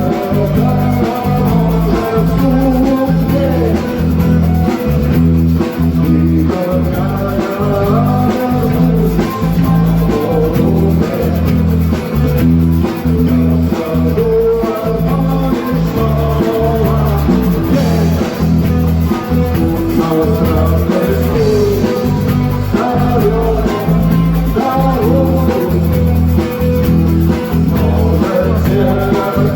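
Rock song with electric guitar, bass and drum kit, with some singing.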